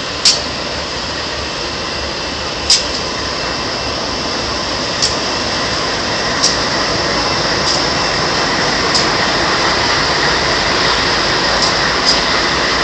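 A train rolling by with a steady rumble that grows slightly louder, broken by sharp clicks every one to two seconds.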